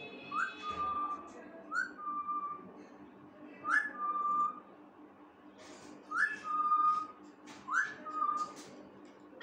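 Pet parrot whistling one short call five times over: each a quick upward sweep followed by a held, slightly lower note, with a few rougher, scratchy sounds between calls near the middle.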